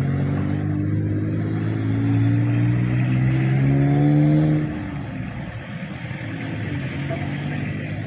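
Diesel engine of a SANY SY135C crawler excavator, revving with its pitch climbing slowly for about four and a half seconds, then dropping back to a lower, steady run.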